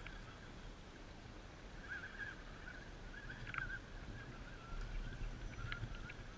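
Faint, wavering whine of an RC rock crawler's electric motor working at low throttle over rocks, with a few light clicks of the truck on stone near the end.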